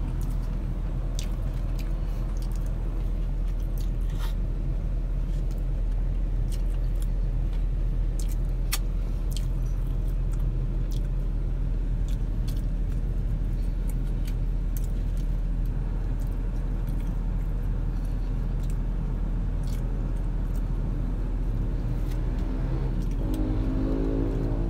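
Steady low hum of a car engine idling inside the cabin, with scattered small clicks and crackles from chewing and from a paper food box being handled.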